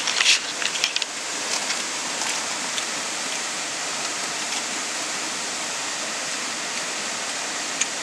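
Steady rushing of a nearby waterfall, an even hiss of falling water, with a few light crackles from a wood campfire in the first couple of seconds.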